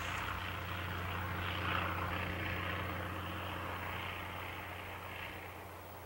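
Distant aircraft engine droning steadily over a low hum, slowly fading away.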